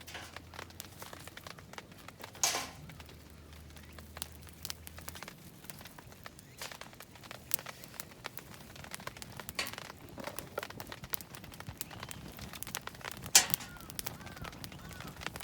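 Intermittent crinkling and light clicking handling noise, with two sharper knocks about two and a half seconds in and shortly before the end.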